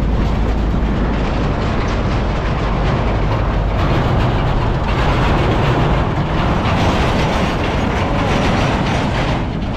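A heavy semi-trailer truck overtaking close by on a gravel road, its tyres and engine making a loud, steady rumble. Road noise from the rider's own vehicle and wind buffeting on the microphone run under it.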